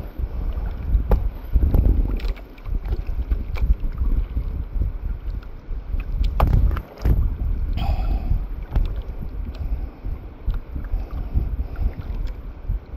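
Wind buffeting the microphone over water lapping against a small outrigger boat, with scattered light clicks of fishing line and tackle being handled.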